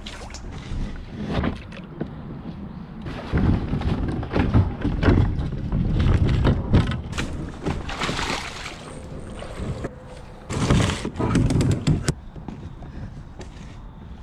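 Wading splashes in shallow creek water beside a kayak, with sloshing and dull thunks of the hull and paddle, coming in two louder stretches.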